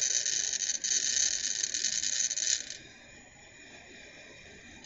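Long, deep inhalation drawn through the hose and mouthpiece of an Airlife incentive spirometer, a lung exercise done after long bed rest. It makes a steady, high airy hiss that is strong for about three seconds and then fainter.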